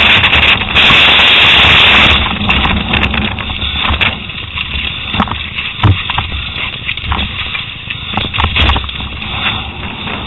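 Wind buffeting the microphone loudly at first, dropping off about two seconds in to the rumble of mountain-bike tyres rolling over dirt and rock, with repeated sharp clicks and knocks from the bike rattling over rough ground on a fast downhill run.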